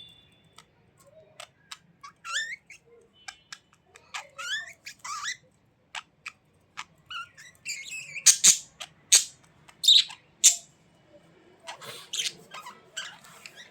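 Budgerigars chattering and warbling in short, rising chirps, mixed with sharp clicks, with a run of loud shrill calls a little past the middle.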